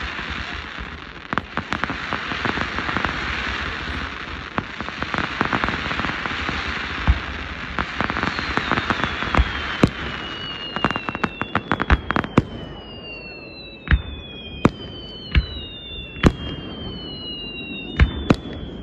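Fireworks going off: a dense crackling shower of sparks with many sharp pops for about the first ten seconds. Then several whistling shells, each whistle falling in pitch, mixed with single sharp bangs.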